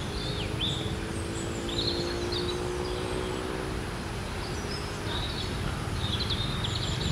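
Outdoor ambience of small birds chirping and twittering in short high calls over a constant low rumble. A steady low hum runs underneath and fades out about four seconds in.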